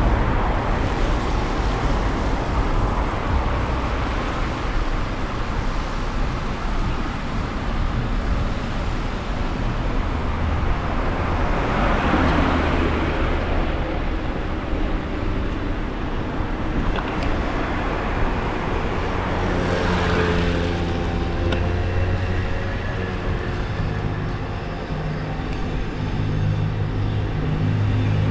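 Street traffic: a steady wash of vehicle noise, with a car passing about twelve seconds in and another about twenty seconds in, followed by the steady hum of a running engine.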